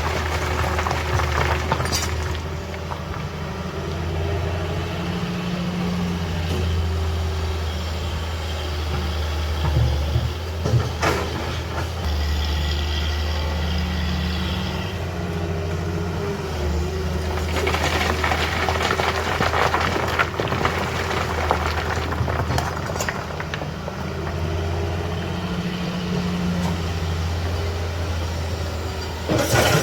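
Heavy diesel engine running steadily with a deep hum, with spells of louder, hissier noise near the start and about two-thirds of the way in.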